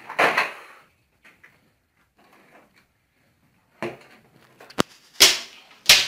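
Scattered knocks and rustling handling noises in a small room: a rustle just after the start, then a few sharp clicks and a louder rustling burst in the last two seconds.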